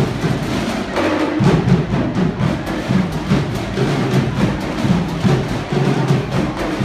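A drum line playing: a fast, steady rhythm of drum strokes with sharp clicking hits mixed in.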